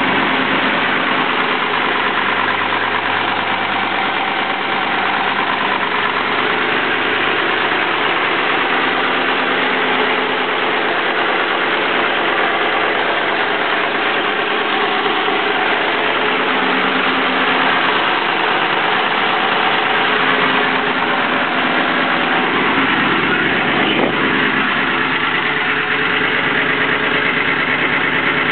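Engine idling steadily with its exhaust leak repaired, an engine noise still there without the leak.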